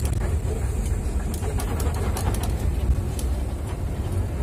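Steady low rumble of engine and tyres on the road, heard from inside the cabin of a moving vehicle, with a few faint ticks.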